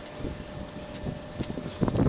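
Aerosol canola-oil cooking spray hissing as it is sprayed into a steel cabinet smoker, over a low wind rumble on the microphone.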